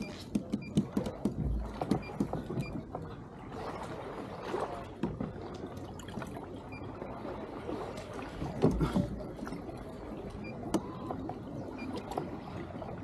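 Water lapping against a plastic kayak hull, with scattered small knocks and clicks of gear on the boat and a few louder bumps.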